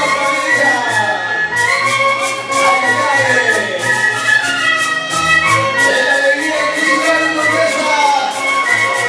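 Andean folk dance music, led by violin over a steady percussive beat.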